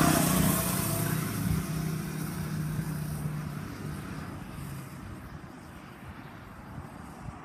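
Small mini bike engine running as the bike moves away, its sound fading steadily over several seconds.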